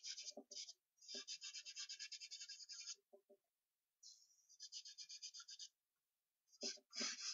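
Charcoal scratching on paper in quick back-and-forth shading strokes, about eight a second, in bursts of one to two seconds with short pauses between them. A few soft knocks of the hand against the drawing board come in between.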